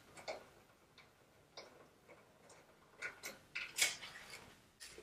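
Faint, irregularly spaced light clicks and ticks of hand tools on the nose-piece bolts of a 300ZX, about half a dozen, the loudest a little before the end.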